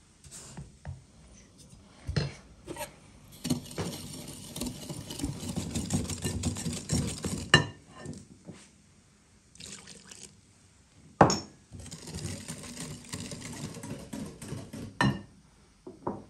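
Wire whisk beating a creamy batter in a glass bowl: two spells of fast whisking a few seconds each, broken by sharp clinks of the whisk against the glass. A few light taps come first.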